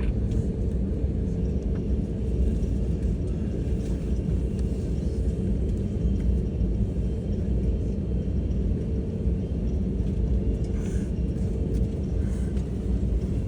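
Steady low rumble of an Airbus A321neo's cabin noise with a steady hum running through it, as the airliner rolls along the ground after landing.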